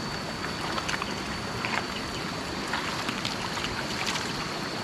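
Stream water rushing steadily, with small splashes every second or so.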